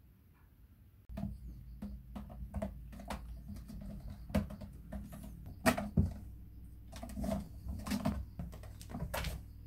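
Irregular scratches and knocks of cats' claws and paws on a carpeted cat tree while a kitten and an adult cat paw at each other, over a steady low hum that starts about a second in.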